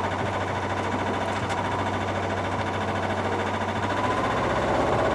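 Sailboat's engine running steadily in reverse to pull hard against a freshly set anchor, the revs rising about four seconds in; the test shows whether the anchor has dug in or is dragging.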